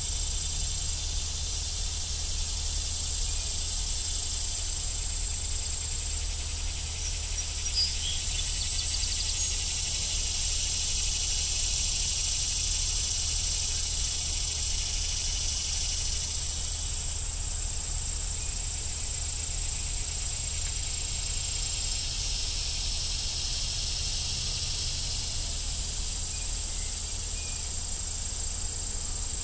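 Steady chorus of insects trilling at a high pitch, cricket-like, easing a little midway and then returning, over a low steady rumble.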